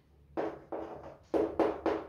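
Chalk tapping and scraping on a blackboard as formulas are written: a run of about five short strokes, starting about a third of a second in.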